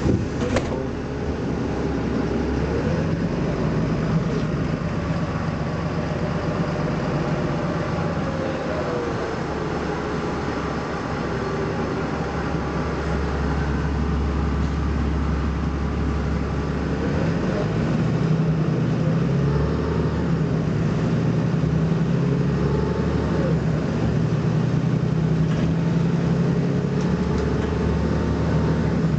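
BMC Belde 220-SLF city bus's engine running as the bus drives, its note rising and falling several times as the revs change through the gears. A short clatter comes right at the start.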